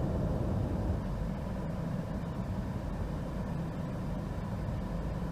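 Toyota Gaia's petrol engine idling unevenly, its revs wavering as the air-conditioning compressor cuts in and the idle fails to pick up. The owner suspects the idle air control valve needs cleaning.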